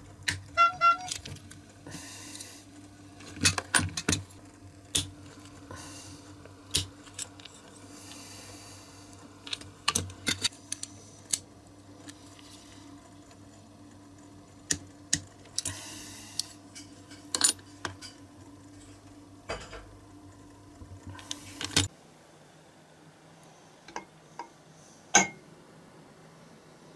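Sharp metallic clicks and clinks, irregularly spaced, as a small diecast model car is taken apart with a hand tool, its baseplate being pried loose. A steady low hum underneath stops suddenly about two thirds of the way through, after which come a few lighter clicks.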